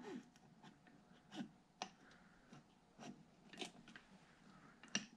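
Near silence, broken by about half a dozen faint, short clicks and taps as the cylinder of a Kawasaki Mojave 250 engine is handled and lifted off its piston.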